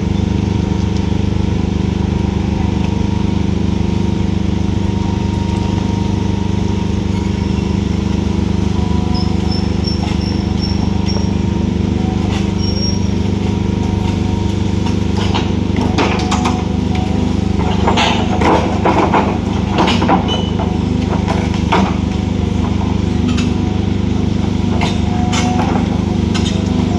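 Excavator's diesel engine running steadily under work. About halfway in, a run of sharp clanks and knocks starts up over it and goes on to the end.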